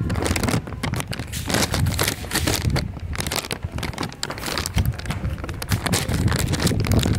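Phone microphone handling noise: irregular crackling and rubbing with a low wind-like rumble as the phone is carried and moved about quickly.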